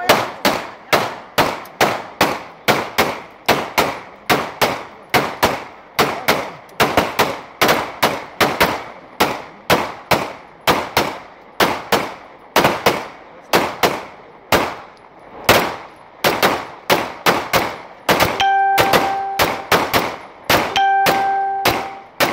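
Pistol shots fired in a long, rapid, unbroken string, about two a second, as semi-automatic handguns are emptied into the air in celebratory fire. Near the end a steady tone sounds twice, each time for over a second, over the shots.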